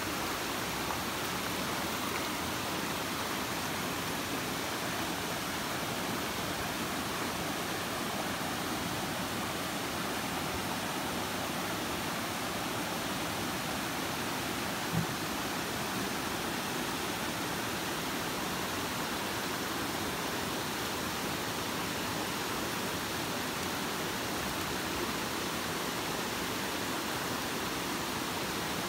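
Steady rushing of stream water running through rapids, an even hiss that does not change. One brief soft knock about halfway through.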